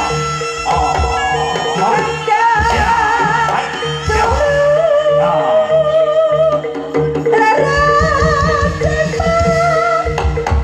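East Javanese jaranan music: drums and gongs keep a steady beat under a held note and a wavering, ornamented melody line with singing.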